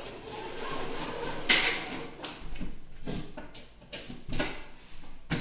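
Handling noise at a PVC window frame: a brief rustling rush about a second and a half in, then several irregular knocks and clacks.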